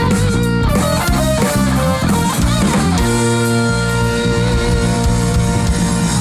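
Live rock band playing an instrumental passage on electric guitar, bass and drums, with no singing; about three seconds in the playing turns to long held chords.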